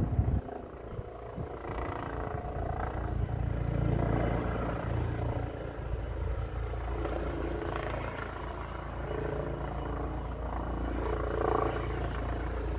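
Helicopter flying over the house, a steady low drone of rotor and engine.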